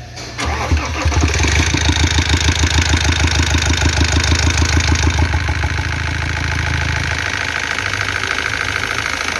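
Iveco Daily 35S14 diesel engine started from cold. It catches within the first second and runs with a loud, regular pulsing clatter for about five seconds while the hydraulic lifters and chain tensioners fill with oil. It then settles into a steadier idle that keeps a continuous noise from the front of the engine, which the owner suspects is a tired timing-chain tensioner or a worn chain kit.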